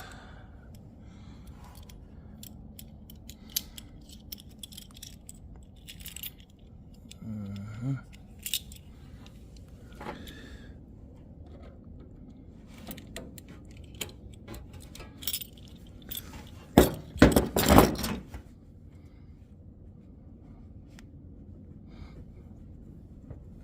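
Metal parts clinking and tapping as a truck steering column is worked down into its seat, with a louder run of rattling knocks about seventeen seconds in.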